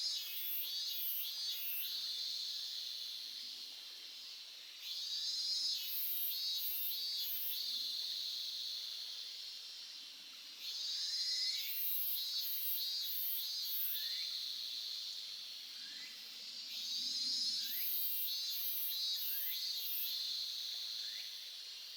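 High, pulsing animal calls, a rapid trill repeated in bouts of two to three seconds about every five seconds, over faint running water of a mountain stream.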